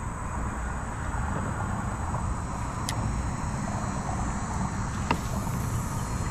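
Steady rumble of road traffic crossing the highway bridge overhead, with a few light clicks from handling the spinning rod and reel.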